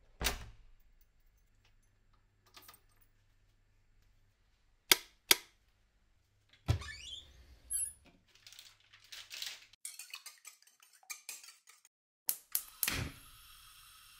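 A series of household handling sounds: a key clicking in a door lock, a pair of sharp knocks, then clatter and rustling as eggs are taken from the fridge. Near the end a gas stove's igniter clicks a few times, the burner catches with a whoosh and then burns with a steady hiss.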